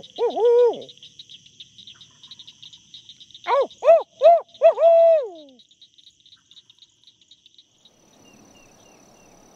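Barred owl hooting in rhythmic phrases: one phrase finishes in the first second, and another about three and a half seconds in ends on a long, falling note. Underneath is a steady, high, pulsing trill of a night chorus, which cuts off about six seconds in.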